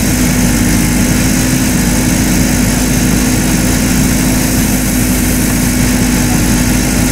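Backhoe loader's diesel engine running at a steady pace with a constant low hum while its arm scoops and dumps earth.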